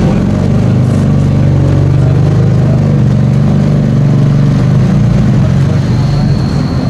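Porsche 718 Cayman GT4 RS's naturally aspirated 4.0-litre flat-six idling steadily through its upgraded exhaust as the car creeps backwards.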